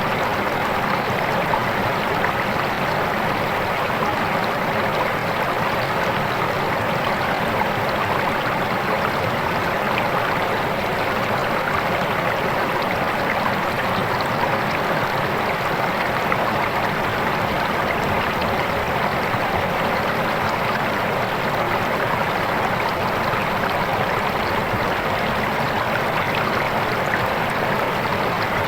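Swift river water flowing in a steady, unbroken rush.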